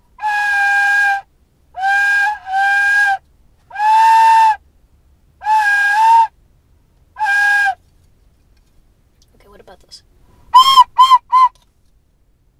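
A whistle blown in six held toots on one unchanging note, then three quick shorter toots a little higher near the end; the note won't change.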